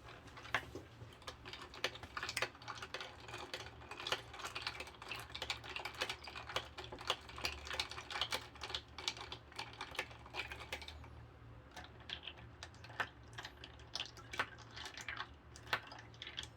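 Close-up eating sounds: a quick, irregular run of small clicks and smacks from chewing and handling food, over a low steady hum.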